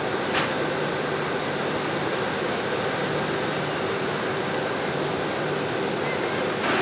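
Steady hum and hiss of a cruise ship's machinery on deck, with one brief click less than half a second in. The noise grows a little louder and brighter near the end.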